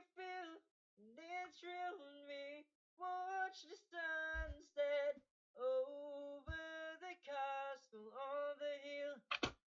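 A man singing unaccompanied, recorded through a BM-700 condenser microphone running without phantom power at +10 boost, so the voice is quiet and thin. Noise suppression cuts the sound to dead silence between the short phrases, and there are two brief low thumps partway through.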